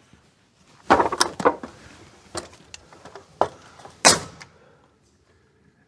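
Hammer striking a wooden trim board, about six irregular knocks, the loudest about a second in and about four seconds in.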